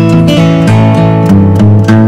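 Background music with a melody of held notes that change every fraction of a second.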